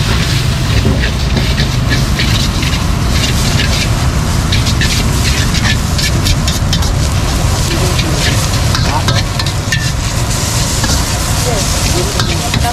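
Metal ladle scraping and clanking against a steel wok as egg noodles are stir-fried, many quick strokes, with sizzling that grows brighter near the end, over a steady low rumble.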